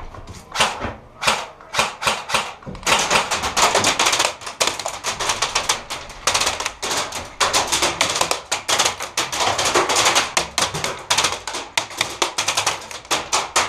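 Airsoft fire: a rapid, dense clatter of sharp clicks and taps, like BBs striking the wooden building around the player. A few scattered clicks come first, then from about three seconds in it runs almost without a break.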